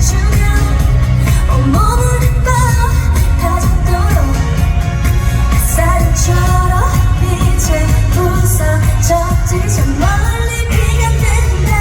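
A woman singing a Korean pop song over backing music with a strong, steady bass.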